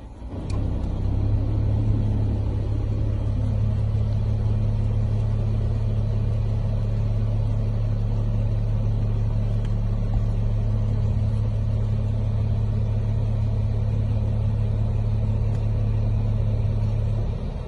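Vehicle engine running steadily as a low, even hum, heard from inside the car.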